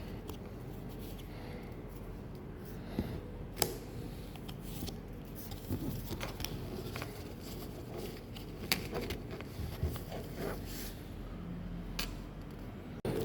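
Trading cards and their packaging being handled: scattered light clicks, taps and rustles over a steady low hum.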